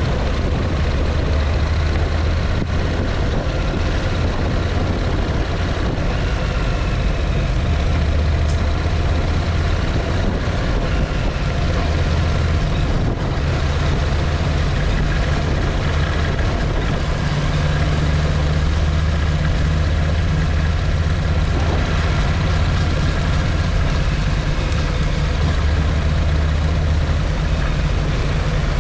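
A motor vehicle driving off-road, its engine giving a steady, heavy low rumble.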